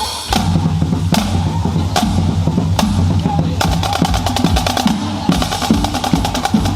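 Drum-heavy music with a steady bass line kicks in suddenly right at the start, marked by single strong hits about once a second. About three and a half seconds in, it breaks into fast, rapid drumming.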